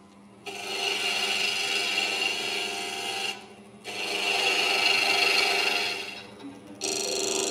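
A woodturning gouge cutting the spinning cedar of Lebanon blank on a lathe, a steady hiss of shavings coming off. It comes in three passes: the first starts about half a second in, there is a short break just after three seconds, another just after six, and then the cutting resumes.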